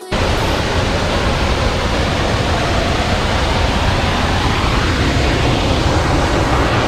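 Waterfall heard close up: a steady, loud rush of falling water that cuts in suddenly.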